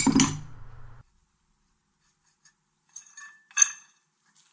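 A hammer blow on steel right at the start, peening over a bolt end on the pallet breaker's pivot so it won't come off, ringing for about a second. After a quiet stretch, three light metal clinks of steel parts knocking together, the last the loudest.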